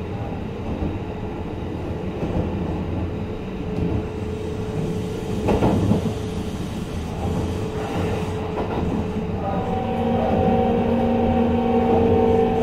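Kintetsu 23000 series Ise-Shima Liner electric train running: a steady rumble of wheels on rail with a single clunk about halfway through. About ten seconds in, a steady motor tone comes in and the sound grows slightly louder.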